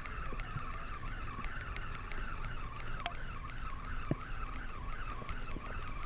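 Fishing reel being cranked fast to bring in a hooked fish, its whine rising and falling with each turn of the handle, about three times a second. A sharp click about three seconds in.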